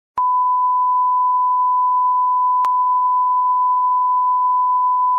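A loud, steady electronic beep: one unchanging pure tone that starts with a click just after the start, with a second click about two and a half seconds in.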